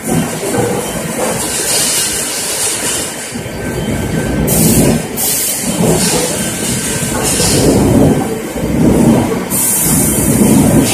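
Veneer production line machinery running: a continuous mechanical clatter and rumble, with short bursts of high hiss about four and a half seconds in and again near the end.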